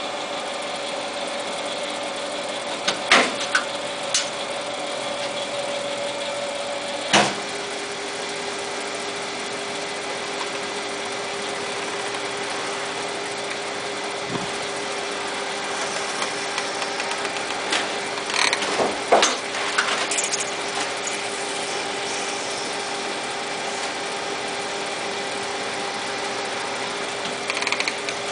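Jet TL-25 turret lathe running with a steady hum, broken by sharp metallic clanks as the turret and levers are worked. After a clank about seven seconds in, the hum settles to a lower pitch.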